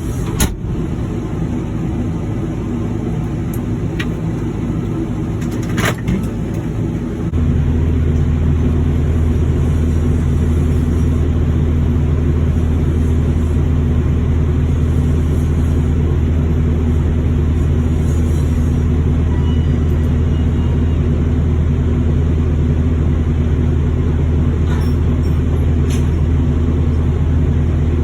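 Heavy machinery running with a steady low drone, broken by a couple of sharp clicks. About seven seconds in, it steps up to a louder, deeper drone and holds there.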